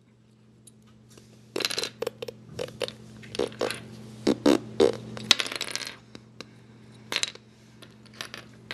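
Loose plastic cube pieces clicking and clattering as they are rummaged through by hand, in bursts of small sharp clicks starting about a second and a half in and dying away near the end.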